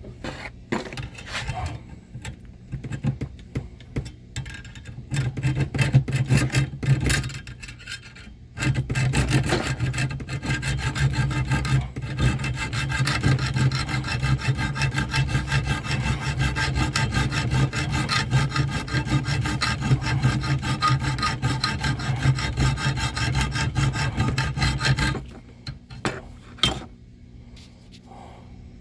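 An abrasive tool rubbing on wood: irregular strokes at first, then a steady, continuous run of about sixteen seconds that stops abruptly.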